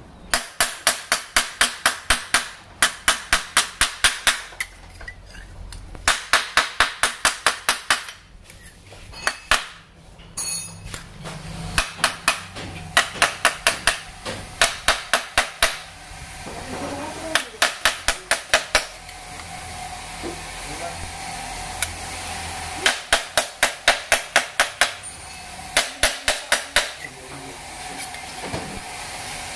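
Hammer rapidly striking a metal tool held against the cylinder block of a stripped diesel engine, about six or seven blows a second, in runs of one to two seconds with short pauses. A steady hum runs under the later half.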